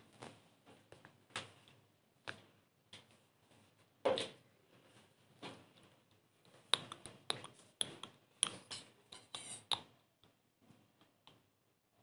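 Irregular light clicks and taps from painting materials being handled: a brush tapping against a small paint cup and small bottles on newspaper. One louder knock comes about four seconds in, and a quick run of clicks between about seven and ten seconds.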